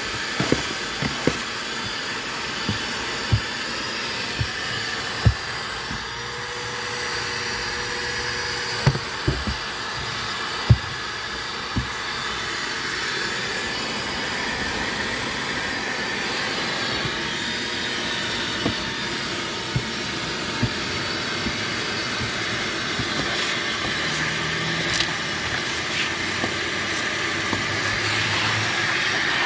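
Shop vac running steadily, its hose and wand sucking over a car's floor carpet, with scattered sharp clicks and knocks throughout.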